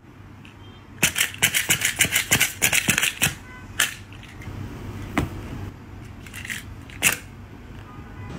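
A prop knife tapped rapidly on a leather-covered ottoman between the spread fingers of a hand, in the knife-between-fingers game: a quick run of taps for about two seconds, then a few single taps.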